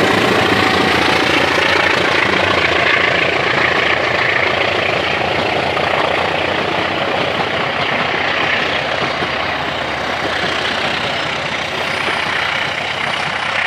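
Passenger train coaches rolling past at close range: a loud, steady rush of wheels running on the rails, easing slightly toward the end.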